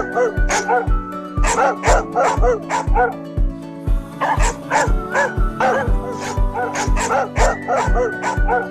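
Dog barking and yipping in short repeated calls over electronic music, with a steady kick drum beating a little over twice a second.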